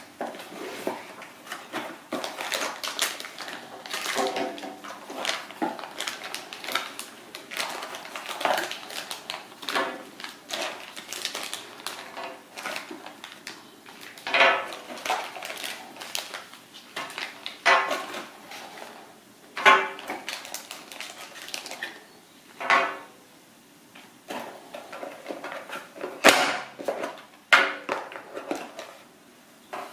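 Hands unpacking a boxed action camera: cardboard box parts sliding and rubbing, plastic accessory bags crinkling, and irregular light clicks and knocks of items set down on a glass tabletop, with a few sharper knocks in the second half.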